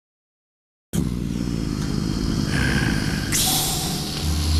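A motor vehicle engine running with a dense low rumble, starting abruptly about a second in after silence; a loud hiss joins in past the midpoint.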